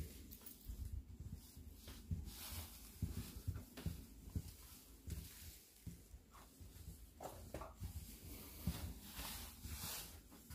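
Soft footsteps and scuffing of someone walking through a railway passenger car's corridor, irregular low thumps with several brief rustles.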